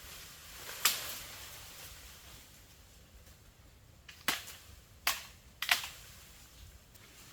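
Four sharp knocks: one about a second in, then three more close together about four to six seconds in.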